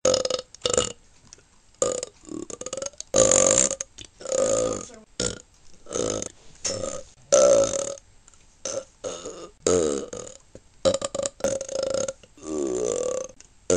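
A rapid series of about fifteen separate burps from one person, some short and clipped, others longer, pitched and wavering, with brief silent gaps between them.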